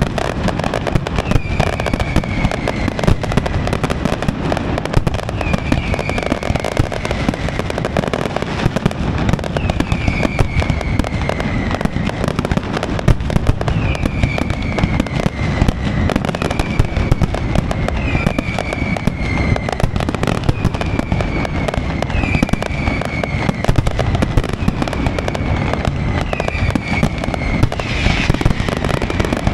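Aerial fireworks display by Pirotecnia Valenciana: a dense, unbroken rattle of bangs and crackling, with short falling whistles recurring every couple of seconds.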